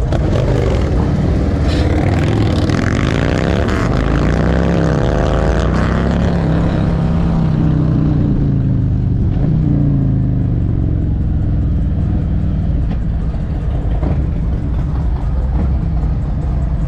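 Harley-Davidson V-twin motorcycle engine running under way. Its pitch climbs as it accelerates over a few seconds, then it settles into a steady, lower run.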